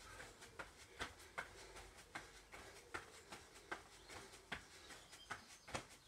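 Trainers landing on a foam floor mat during jumping jacks: a steady run of light thuds, about two and a half a second.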